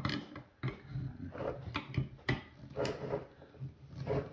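Screwdriver tips prying and levering at a seized plastic car side-mirror assembly: irregular clicks, knocks and scraping as the stuck parts are forced.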